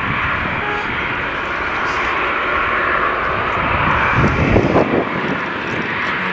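Boeing 737-800's CFM56-7B jet engines running at low power as the airliner taxis, a steady whooshing whine strongest in the upper mid range.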